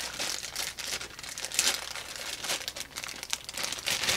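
Clear plastic bag crinkling in irregular crackles as hands unwrap a new set of multimeter test leads from it.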